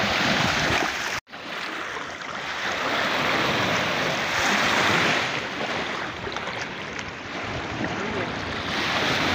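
Small sea waves washing and breaking in shallow surf around rocks, swelling and ebbing every few seconds, with a brief gap in the sound a little over a second in.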